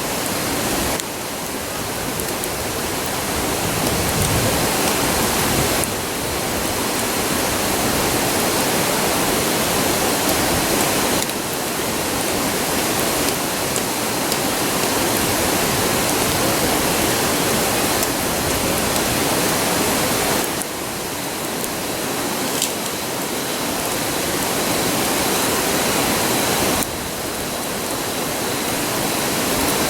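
Steady rushing roar of a nearby river. The level drops abruptly a few times and creeps back up, and there is one sharp crack about three-quarters of the way through.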